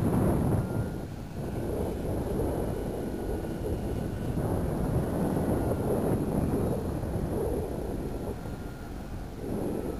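Wind buffeting the microphone in uneven gusts, over the faint, slightly wavering drone of a radio-controlled Edge 330 aerobatic model airplane's motor and propeller flying high overhead.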